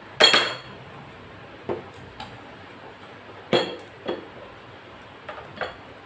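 Ornaments and a small picture frame being set down and shifted on the glass shelves of a corner stand: a run of sharp clinks and knocks. The loudest, with a brief ring, comes just after the start, and another comes about three and a half seconds in.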